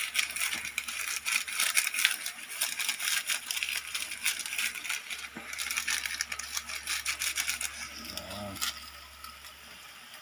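Mussels sautéing in a pan, sizzling and crackling with dense fine pops, dying down to a quieter hiss near the end.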